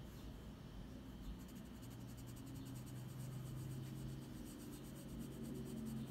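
Graphite pencil scratching on sketchbook paper in quick, even back-and-forth shading strokes, several a second, starting about a second and a half in. A faint low hum runs underneath.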